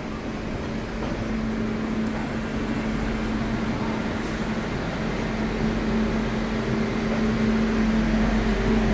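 WAP-7 electric locomotive standing at the platform with its cooling blowers and transformer running: a steady hum with a held mid-pitched tone, its low rumble growing stronger near the end.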